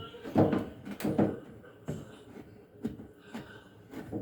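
A handful of light knocks and clicks from a front-load washer's control board and panel parts being handled and lined up into place.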